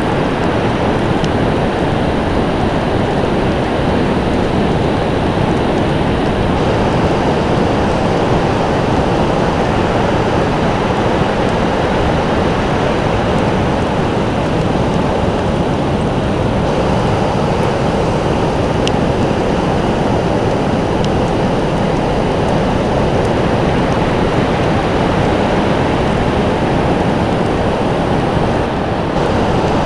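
Ocean surf breaking along a beach: a continuous, even, deep wash of noise, with no single wave standing out.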